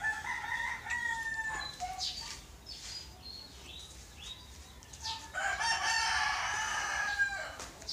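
A rooster crowing twice: one crow at the start and a longer, louder crow about five seconds in.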